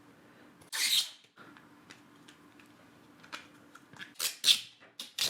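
A clear plastic phone case being handled: short plastic rustles and scrapes, about a second in and again several times near the end, with faint clicks between.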